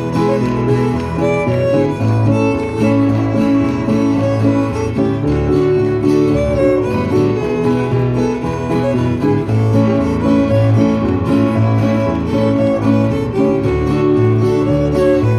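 Live fiddle tune: a fiddle plays the melody over strummed acoustic guitar and piano accompaniment, in a steady, lively rhythm.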